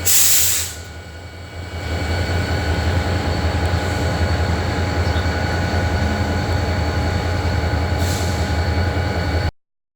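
EMD SD40-2 diesel locomotive's 16-cylinder two-stroke engine running as the locomotive pulls away: a steady, low, throbbing drone that grows louder about two seconds in. A short, loud burst of air hiss comes at the start, a fainter one near the end, and the sound cuts off suddenly just before the end.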